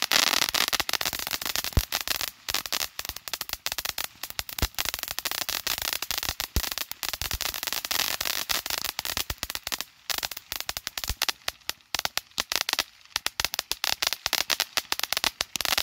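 A multi-tube ground fountain firework firing its third tube: a hiss of spraying sparks with dense crackling and occasional sharper pops throughout.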